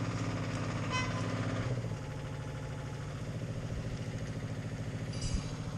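Cable-logging yarder engine running steadily, a little louder for the first couple of seconds and then easing off, with a short high beep about a second in.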